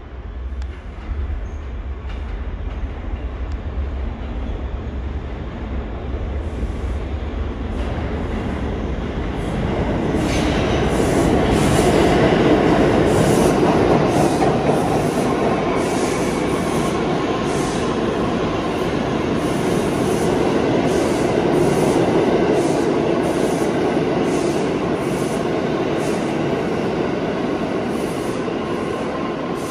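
A New York City subway train running along the track. A low rumble builds to a loud clatter about ten seconds in, with a quick run of wheel clacks over rail joints and a faint wheel squeal.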